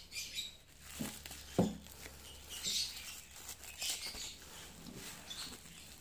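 Clear plastic stretch wrap around a parcel crinkling and rustling as it is gripped and turned over by hand, with two knocks of the parcel against the table about a second in, the second louder.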